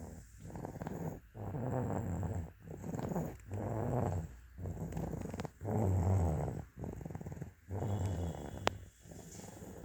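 Snoring: a steady run of rattling breaths, about one every second, each with a low rumble. A single small click comes near the end.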